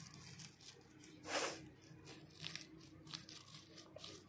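Faint rustling and light clicks of a small plastic toy car being handled on a woven plastic mat, with one louder rustle about a second and a half in.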